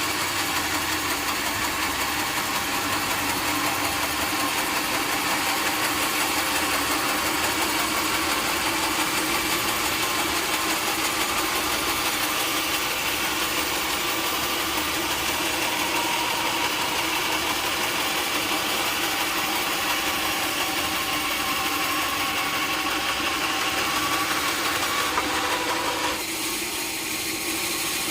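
Sawmill machinery running steadily, with a sudden drop in level about two seconds before the end.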